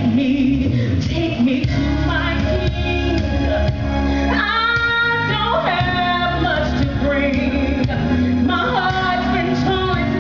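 A woman singing a gospel song into a microphone over instrumental backing, with long held notes.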